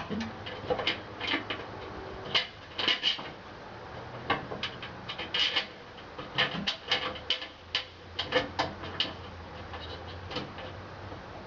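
Irregular light clicks and metal clinks of hand work with tools and sheet-metal parts while the heater is being installed, over a low steady hum.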